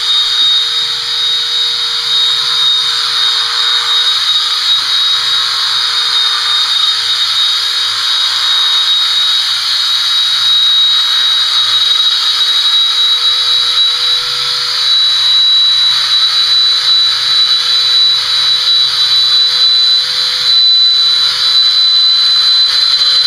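Electric horse clippers running with a steady high whine as they clip the hair on a horse's face.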